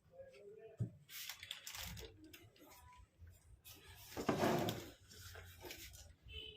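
Handling noise from a computer case and its packaging being moved and unpacked: a sharp click a little under a second in, light rustling, and a louder rustle about four seconds in.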